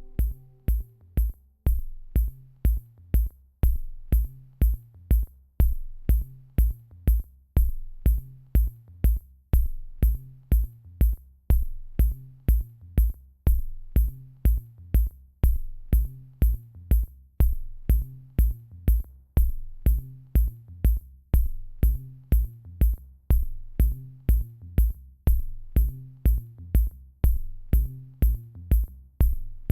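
Electronic music with a steady drum-machine beat, about two kicks a second with a click on each, over a low repeating bass line.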